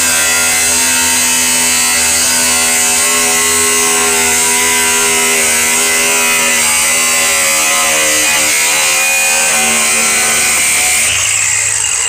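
Angle grinder with a cutoff wheel cutting through the steel floor pan over the fuel tank: a loud, steady grinding whine that winds down and stops near the end.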